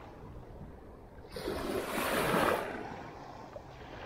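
A small wave washing in on the shore once, rising about a second in and falling away a second or so later, over a low steady rumble of wind and sea.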